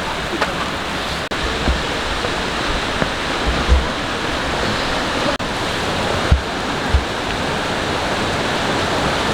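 Steady, loud rush of falling water from a waterfall, with a few short low thumps.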